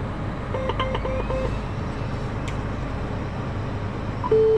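Tractor engine running steadily, with four quick electronic beeps from the GreenStar 3 monitor about half a second in. Near the end a louder alert beep starts up.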